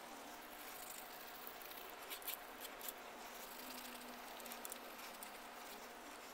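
Maroon Scotch-Brite pad scrubbing a lubricated cast-iron lathe cross-slide surface to clean off rust: a faint, steady scratchy rubbing, with a few sharper scratches about two seconds in.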